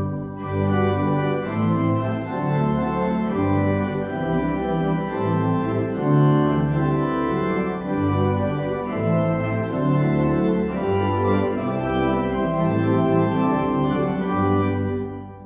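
Organ music: sustained chords over a slowly moving bass line, the notes changing about once a second, with a brief dip in level near the end.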